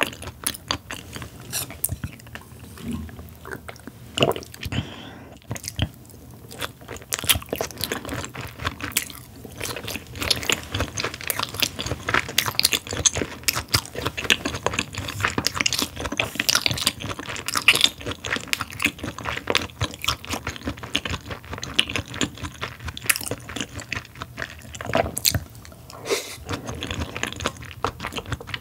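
Close-miked chewing of raw beef: a dense, irregular run of quick mouth clicks and smacks.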